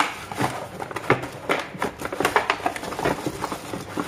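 Plastic wrapping and brown paper crinkling and rustling, with irregular light knocks, as items are pushed into a cardboard box.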